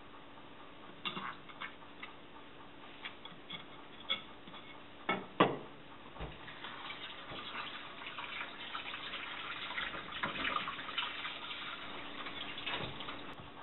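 A knife clicking and scraping on a wooden cutting board with a few sharp knocks, the loudest about five seconds in. Then a kitchen tap runs into a stainless steel sink as the sea bream's belly cavity is rinsed under the flow, stopping near the end.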